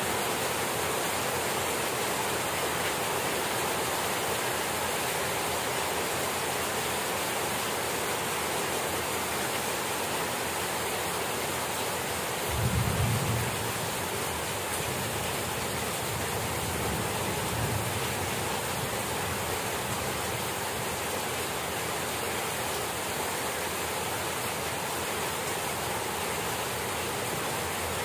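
Heavy rain falling steadily: a dense, even hiss of drops on the lawn and plants. A brief low rumble rises about halfway through, with a fainter one a few seconds later.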